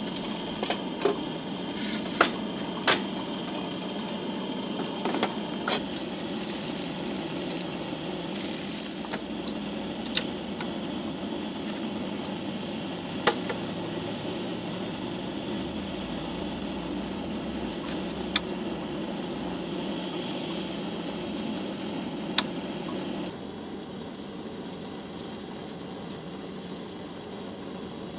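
Camp-kitchen handling sounds: cookware and gear set down on a metal camp table, giving a scattering of sharp clacks over a steady low rushing background. About 23 seconds in, the background drops to a quieter hush.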